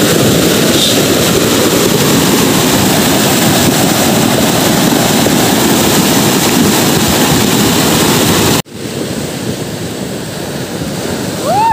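Heavy rain pouring down, a loud steady rushing hiss. About three-quarters of the way through it cuts off abruptly and goes on as a quieter rain hiss.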